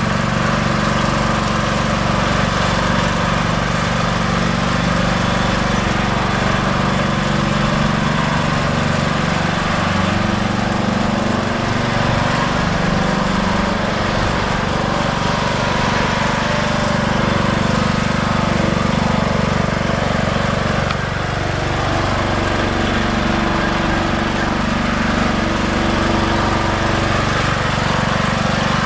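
Riding lawn mower engine running steadily while mowing. Its pitch sags and recovers twice, about halfway through and again about two-thirds through.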